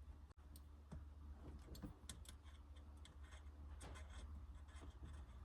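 Faint, irregular clicks and ticks of a hand tool tightening the steering wheel bolts onto the quick-release adapter, over a low steady hum.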